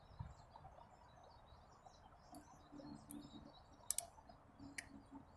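Side-lever cocking action of a Benjamin Kratos .23 PCP air rifle being worked, giving a few faint clicks in the second half. Faint bird chirps behind.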